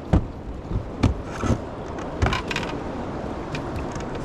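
A few sharp knocks and scrapes of gear being handled on a fishing boat, over a steady low rumble of the boat and river.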